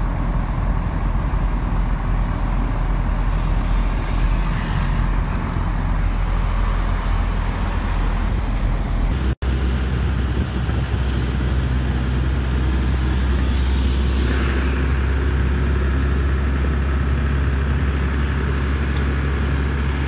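Oil tanker truck's engine running with road and tyre noise, heard from inside the cab as it drives. The sound cuts out for an instant about nine seconds in, then the low engine drone carries on.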